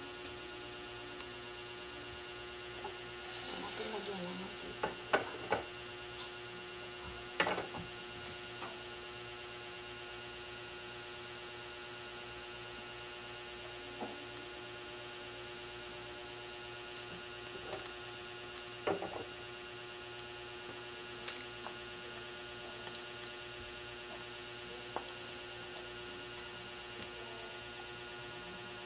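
Steady electrical hum made of a stack of even tones, with a few scattered short clicks and knocks, the loudest about five seconds in, again at seven and a half seconds, and near nineteen seconds.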